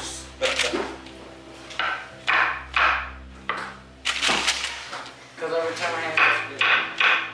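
Kitchen knife chopping on a wooden cutting board, a scattering of knocks, over background music with a singing voice.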